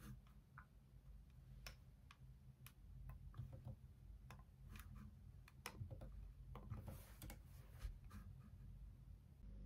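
Quiet, irregular key clicks of typing on a laptop keyboard.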